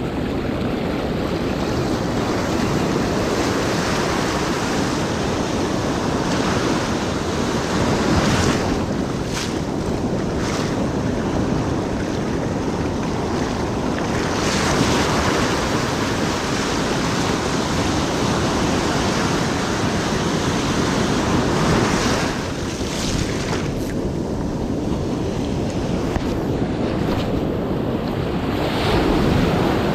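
Ocean surf breaking on a beach, a continuous wash that swells and eases with a few louder surges, with wind buffeting the microphone.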